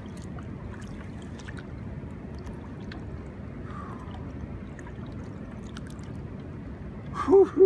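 River water lapping and trickling at the boat's side and around a hand holding a large channel catfish in the current, a steady wash with a few small ticks. A man's voice exclaims near the end.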